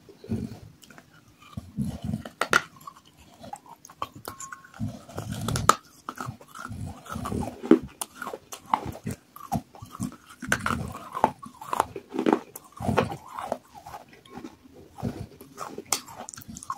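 Close-up mouth sounds of biting and chewing water-soaked pieces of terracotta clay pot: irregular sharp crunches and cracks mixed with wet, thick chewing.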